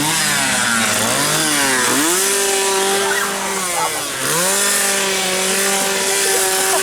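Two-stroke chainsaw revving: its pitch climbs and holds high, dips about four seconds in, then climbs back and holds steady.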